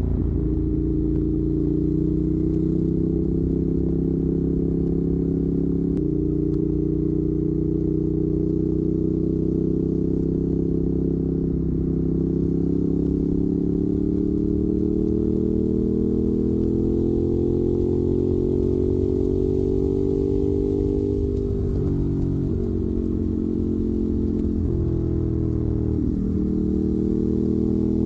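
Ducati Monster 821's 821 cc L-twin through a Termignoni exhaust, running under varying throttle with its note slowly rising and falling. The pitch steps sharply at about six seconds, and a few quick dips near the end are typical of gear changes.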